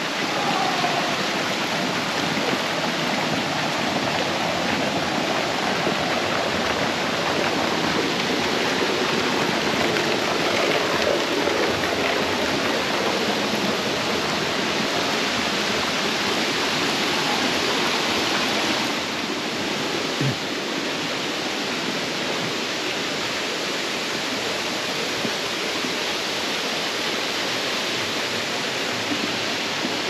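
Steady rush of river water pouring over rocks below a waterfall, a little softer about two-thirds of the way through.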